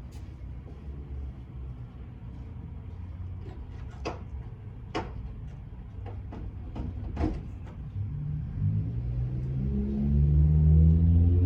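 A few sharp clicks and knocks, like a vehicle door and latch, over a low rumble, then a motor vehicle's engine growing louder and rising in pitch from about eight seconds in.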